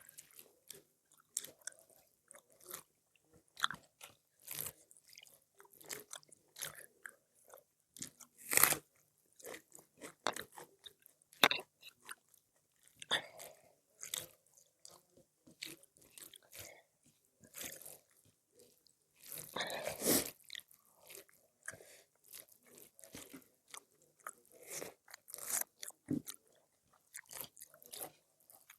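Close-up eating sounds: a person chewing and biting food, with irregular crunches and mouth clicks, a louder crunch about 8 seconds in and a cluster of them about 20 seconds in.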